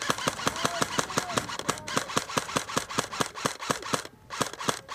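Airsoft electric gun firing on full auto: a long burst of rapid clicking shots at about nine a second that stops about four seconds in, then another short burst.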